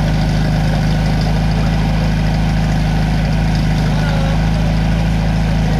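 Portable fire-pump engine running steadily, an even, unchanging hum.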